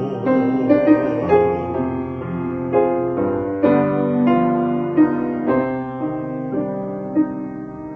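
Piano playing slow chords and melody notes that ring and fade, the playing gradually getting softer. A man's held sung note with vibrato, the last word "fall", dies away about a second in.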